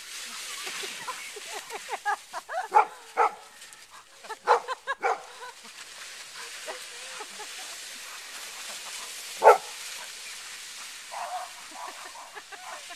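Yellow Labrador barking in short clusters while chasing a sled, with one loud bark about two-thirds of the way through and a quicker run of short barks near the end.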